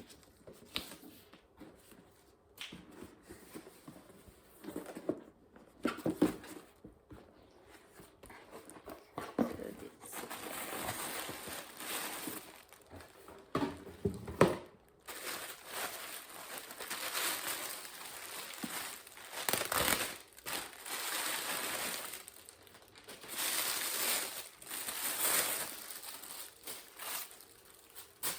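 Handbag packaging being unwrapped. A few knocks and light handling come first; from about ten seconds in there are long spells of crinkling and rustling wrapping.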